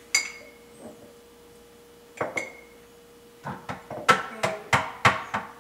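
A spoon clinks twice against a jar, with a short metallic ring. Then, from about three and a half seconds in, children's hands slap together in a quick, even clapping-game rhythm, about three claps a second.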